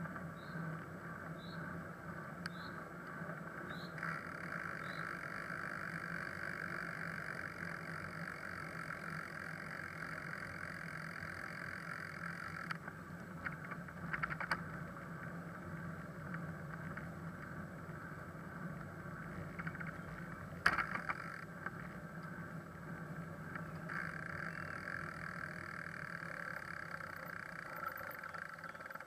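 Steady rolling noise of a touring bicycle riding on an asphalt lane, picked up by a camera on the moving bike, with a few sharp knocks, the loudest about two-thirds of the way in. A faint short chirp repeats about once a second in the first few seconds.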